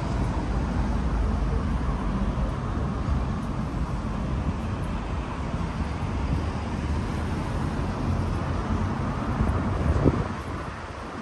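Road traffic on the street alongside: a steady low rumble of passing cars, with a short louder bump near the end.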